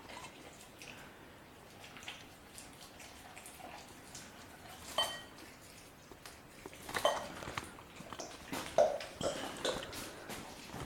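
German Shepherd puppy chewing and crunching on a raw chicken quarter with bone, in scattered wet crunches and clicks. A few sharper knocks come about five and seven seconds in, each with a brief ringing, like a dish being knocked.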